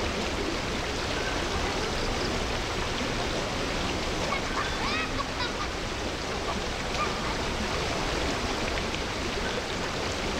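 Steady rush of high, fast-flowing floodwater, an even noise with no break. A few faint short calls rise and fall about halfway through.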